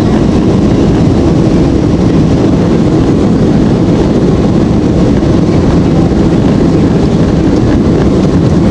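Steady cabin noise of a Boeing 767-300ER on approach with its flaps extended, heard from a window seat behind the wing: an even, low rush of engines and airflow.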